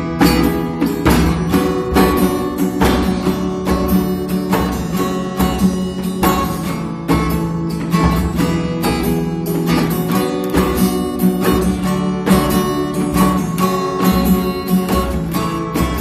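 Acoustic guitar music, chords strummed in a steady rhythm about twice a second.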